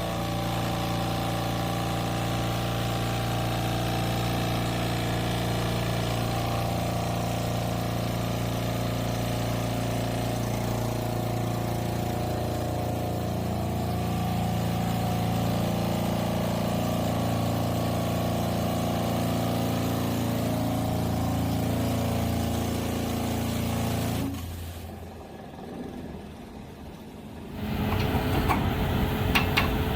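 Excavator with a hydraulic side-grip vibratory pile driver running: a steady engine and hydraulic drone with several held tones. About 25 seconds in it drops away, then comes back near the end as a harsher, rapidly pulsing sound.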